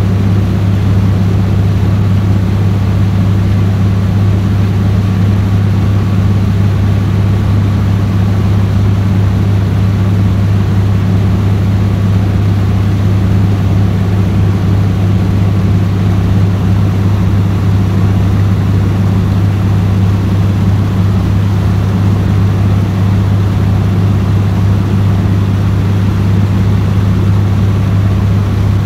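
Engine of a small fiberglass passenger boat running at a steady speed, a loud, even, low drone that holds without change.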